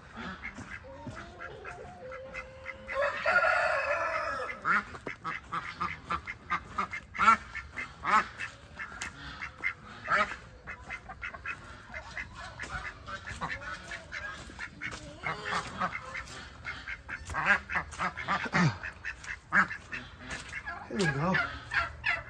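Domestic ducks quacking and chickens calling, with many short calls throughout and one loud, drawn-out call about three seconds in.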